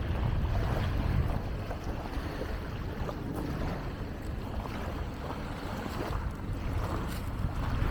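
Wind buffeting the microphone over lake waves washing and splashing on the shore.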